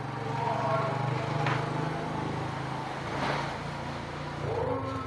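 A steady low engine hum that stops about four and a half seconds in, with two short hissing bursts about a second and a half and three seconds in.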